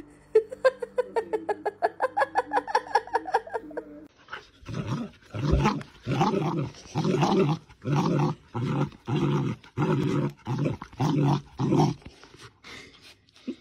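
A dog whining in a quick run of short pitched calls, several a second. Then a puppy gives rough play growls, one about every second, about eight in all.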